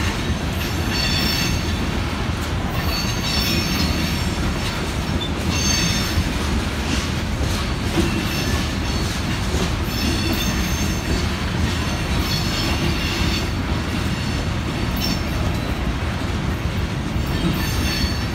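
Loaded freight train of open-top hopper cars rolling past close by: a steady rumble of steel wheels on rail, with repeated clacks over the rail joints. Patches of high-pitched wheel squeal come and go.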